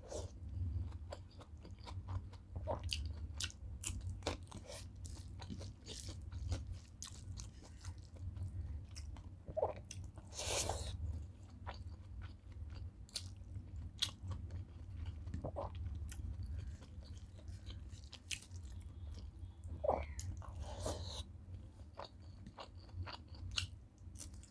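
Close-up chewing of a hand-fed mouthful of rice and fried okra, with many short sharp mouth clicks and a steady low hum underneath.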